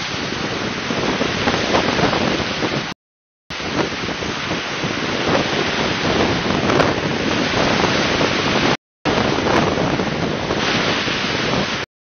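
Sea surf washing onto a pebble beach, with wind buffeting the microphone. The sound cuts out completely twice, for about half a second a few seconds in and again briefly just before nine seconds.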